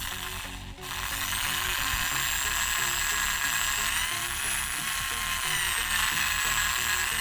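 Corded electric drill running under load, its bit grinding on a hard metal gear housing that it struggles to bore into. The motor whine cuts out briefly just under a second in, then rises in pitch at about four seconds and sinks again as the pressure changes.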